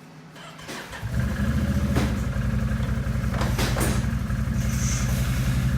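Honda ATC250SX three-wheeler's single-cylinder four-stroke engine started on the electric starter, catching about a second in and settling into a steady idle. A few sharp clicks sound over the running engine.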